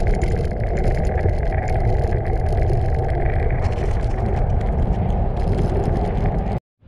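Wind rushing over the microphone of a camera riding along on a moving bicycle, a loud steady rumble that cuts off abruptly near the end.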